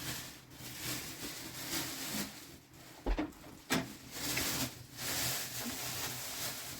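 Rustling and scraping handling noise, with two sharp knocks about three seconds in, half a second apart.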